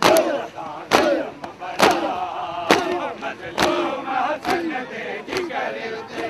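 Crowd of mourners doing matam: sharp unison chest-beating slaps about once a second, with men's voices chanting a lament between the strikes. The slaps grow weaker from about four seconds in.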